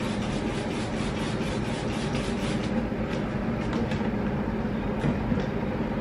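Handheld sprayer misting Barbicide disinfectant over a lash chair: a steady hiss over a low hum, with rapid even ticking about five times a second that thins out about halfway through.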